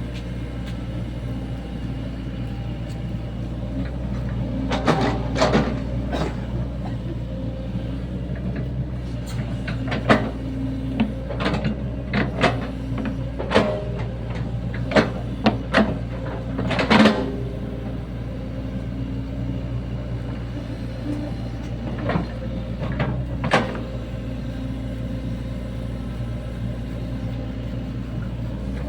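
Sany SY75 mini excavator's diesel engine running steadily while it digs, with scattered sharp knocks and clanks from the working arm and bucket, bunched in the middle and one more later on.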